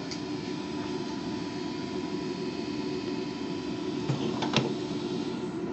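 Garage-built plastic injection moulding machine running with a steady hum and a faint whine, with two sharp clicks about half a second apart some four seconds in.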